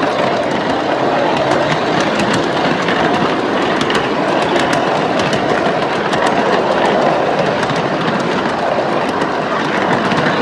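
Small ride-on passenger train running along its track: a steady running noise with a rapid, irregular light clicking from the wheels on the rails.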